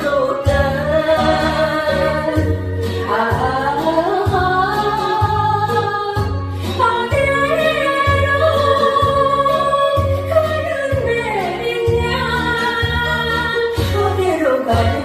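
Woman singing a Korean trot song with vibrato over a backing track with a steady, pulsing bass beat.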